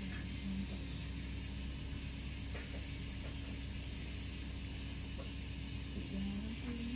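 Steady hiss with a low hum, background noise of the room, with a few faint ticks.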